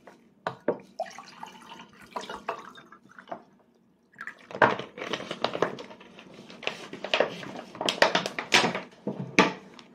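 Wet clicks and smacks of a toddler eating rice: mouth sounds as she chews, with light taps of a small fork on a plastic plate. The clicks are sparse at first and come thick and fast from about halfway through.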